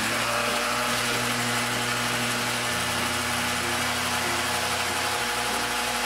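Toy blender running after its button is pressed: a loud, steady whir.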